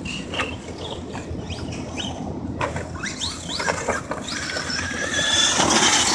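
Electric RC rally car driving, its motor whining up and down in short rising and falling bursts as the throttle is worked, over a steady rush of tyre and ground noise. It gets louder about five seconds in.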